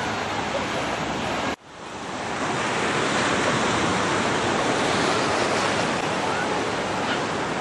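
Ocean surf breaking and washing in the shallows, with wind on the microphone. About one and a half seconds in, the sound cuts out abruptly and fades back up over about a second.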